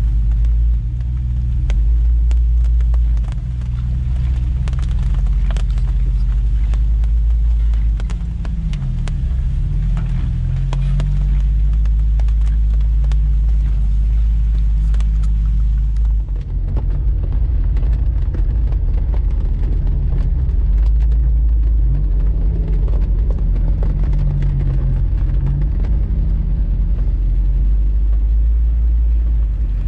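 Jeep Wrangler TJ engine running with a steady low rumble, its pitch rising and falling a few times, with scattered sharp clicks and knocks over it.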